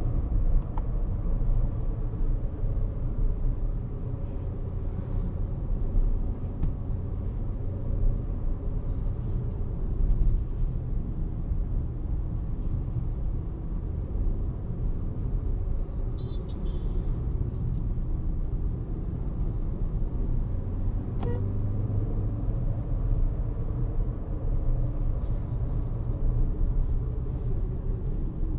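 Hyundai Exter's 1.2-litre Kappa four-cylinder petrol engine running steadily on the move, under tyre and road rumble.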